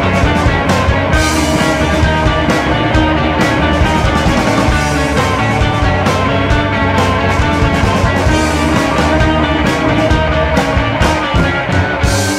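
Rock music soundtrack with guitar and a steady beat.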